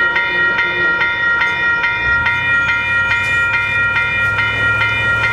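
Railroad grade-crossing bell ringing rapidly, about three strikes a second. A low rumble joins about two seconds in.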